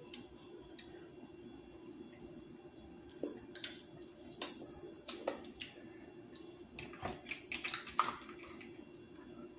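Faint eating sounds: small clicks and wet squishes of seafood being picked apart with the fingers and a lemon wedge being bitten and sucked, scattered irregularly over a low steady hum.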